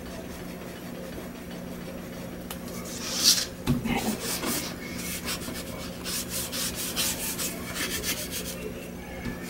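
A damp cloth rubbing over a book's cover. After about three seconds it starts with a loud scrape, then moves into a run of quick back-and-forth wiping strokes.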